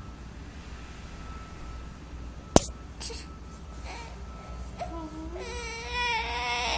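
A baby fusses with a short rising whimper about five seconds in, then breaks into a sustained, wavering cry near the end. A single sharp click comes about two and a half seconds in, before the crying.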